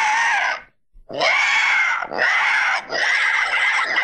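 Recorded dinosaur roars and growls from a sound-making toy dinosaur. One roar cuts off abruptly about half a second in, and after a short gap a longer run of roars and growls starts about a second in, with brief dips between them.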